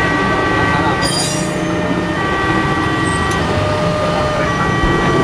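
KRL commuter electric train rolling through a level crossing. Over the train runs the crossing's electronic warning alarm, a chord of steady tones that switches pattern about once a second. A short high hiss or squeal comes about a second in.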